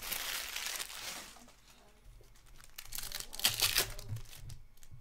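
Hockey card packs being torn open, the wrappers crinkling and crackling in two bouts: one in the first second or so, and a louder one about three to four and a half seconds in.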